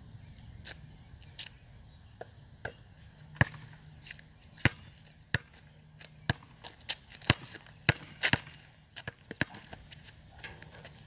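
Basketball being dribbled on an asphalt court: a run of sharp single bounces at an uneven pace, coming thicker and louder from about three seconds in.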